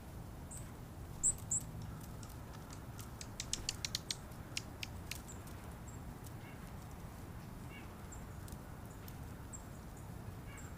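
Small birds feeding: two short, high chirps about a second in, then a quick run of about eight sharp taps and a few more just after, with faint calls later over a low steady rumble.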